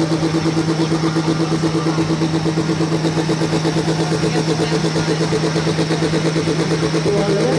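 Tuned diesel pulling-tractor engine idling loudly with an even, lumpy beat of about five pulses a second.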